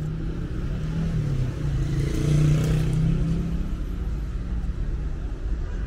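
City street traffic: a motor vehicle's engine hum rises and is loudest about two to three seconds in as it passes, over steady road noise.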